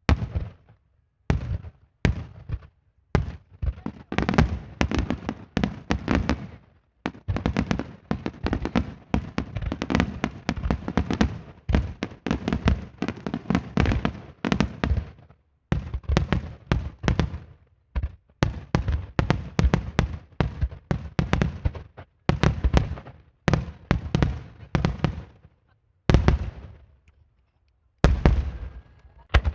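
Aerial fireworks shells bursting in rapid volleys, many sharp bangs close together, with brief pauses between volleys.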